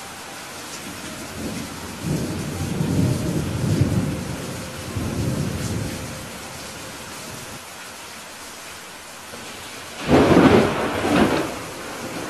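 Steady rain falling, with a low rolling rumble of thunder from about two to six seconds in, then a louder, sharper thunderclap about ten seconds in that dies away over a second or so.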